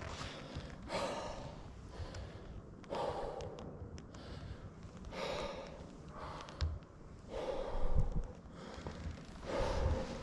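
A person breathing heavily and hard from exertion, five loud breaths at about one every two seconds.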